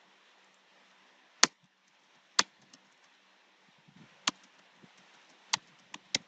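Computer keyboard keys clicking as text is typed: a handful of sharp separate clicks, roughly one every second, with a few faint taps between them.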